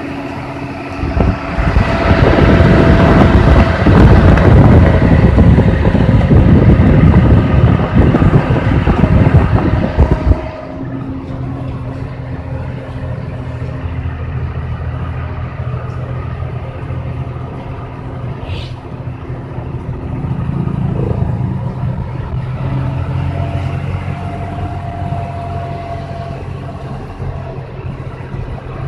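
Hino 500 FM260TI truck's diesel engine running steadily on the move, heard from inside the cab. For the first ten seconds or so a loud rush of wind on the microphone covers it, then cuts off suddenly.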